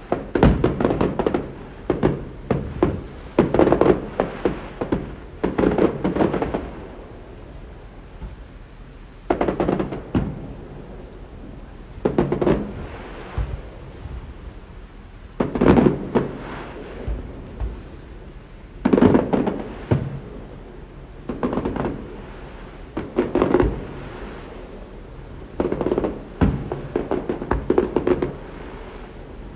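Aerial fireworks bursting: a rapid run of bangs with rumbling tails for the first several seconds, then single bursts or short clusters every two to three seconds.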